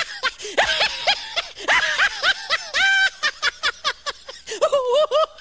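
High-pitched snickering laugh sound effect in quick, short notes, put over the laughing lion.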